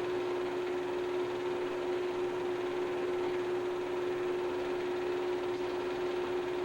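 A steady hum with one held tone over an even hiss, unchanging throughout: background noise on the track of a silent film, with no recorded sound of its own.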